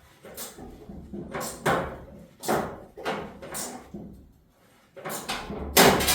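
A run of separate metal clanks and knocks, roughly one every half second to a second, as tools work on the old truck's body bolts. They pause briefly and the loudest knock comes near the end.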